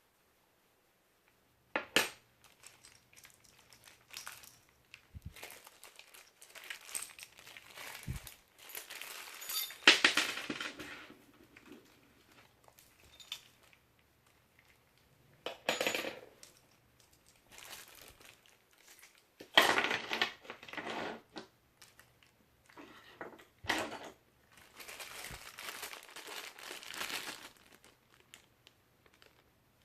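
An angle grinder stand being unpacked and handled: irregular rustling of packaging and clinks of metal parts, with the loudest handling noises about ten and twenty seconds in.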